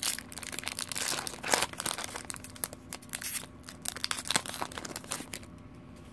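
Foil wrapper of a Pokémon XY Evolutions booster pack crinkling and tearing as it is opened and the cards are pulled out. The crackle dies away about five seconds in.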